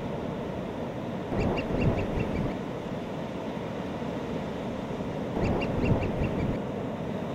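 Surf rushing steadily on a beach, with seabirds calling twice in quick runs of about half a dozen short, sharp calls, about a second and a half in and again near six seconds.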